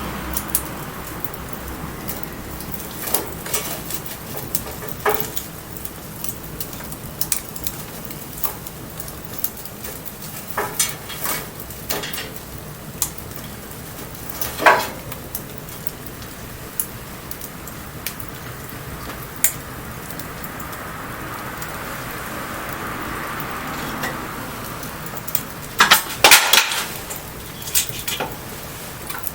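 Wood bonfire crackling: scattered sharp pops at irregular intervals, with a cluster of loud pops about 26 seconds in, over a steady hiss.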